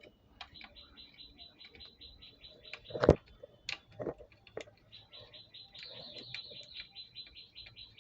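A small bird chirping in two quick rapid-fire runs, about eight high chirps a second. Just after the first run comes a sharp knock, with a few lighter clicks of tools or screws being handled.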